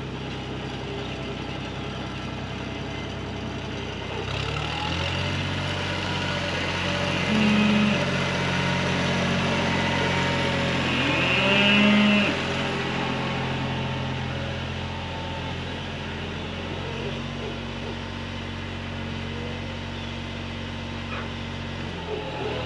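Farm tractor engine running steadily as it warms up, its speed stepping up about four seconds in and easing back later. Two louder short calls stand out over it, near a third and a half of the way through.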